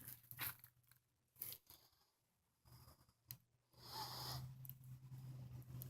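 Faint rustling and handling noises with a few soft clicks, the loudest stretch about four seconds in, over a faint low hum.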